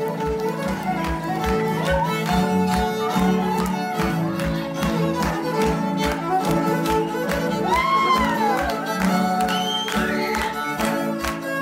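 A live band plays a lively fiddle tune, with acoustic guitar and upright bass keeping a steady low beat underneath. A voice gives a couple of high whoops about two-thirds of the way through.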